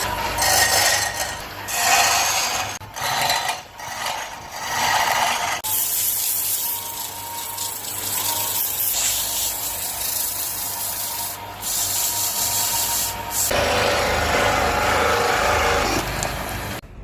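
Walnut wood being shaped by abrasive hand-tool work, rubbing and rasping against the wood. The first five seconds or so come as separate strokes. A steadier stretch follows with a faint constant tone, then a louder stretch of abrasion near the end that cuts off suddenly.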